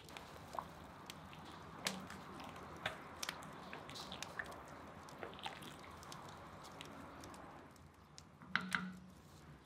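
Meat broth boiling in a cast-iron cauldron: a steady bubbling with many small pops, stirred by a ladle, with two louder knocks near the end.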